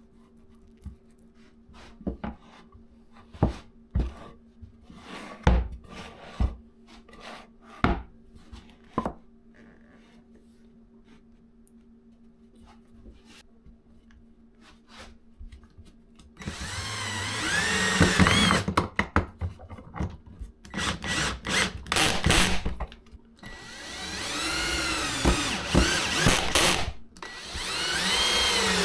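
Wooden pieces knocking as they are handled and set down, then, from about halfway in, a power drill driving pocket-hole screws into 2x6 pine in several long runs, its motor pitch rising and falling as each screw goes in.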